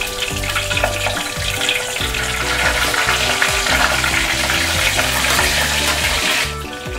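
Chicken pieces sizzling as they fry in hot oil. The sizzle grows louder about two seconds in and drops off sharply near the end.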